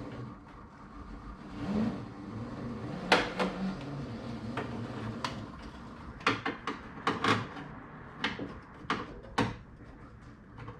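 Sharp clicks and knocks of hands and parts being handled at a car door, scattered through the second half, over a low steady hum.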